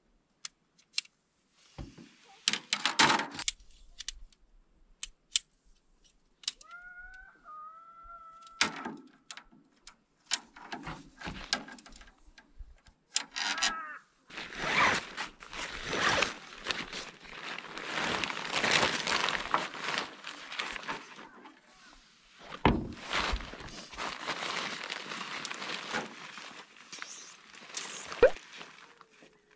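Black Diamond Fitzroy tent being pitched by hand: aluminium pole sections clicking together, then a long stretch of nylon tent fabric rustling and swishing as the poles are fitted and the tent body is handled, with a few knocks. A short squeak sounds about seven seconds in.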